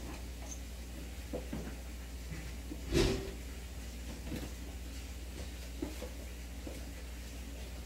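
Steady low hum of running aquarium equipment, with one sharp knock about three seconds in and a few faint taps.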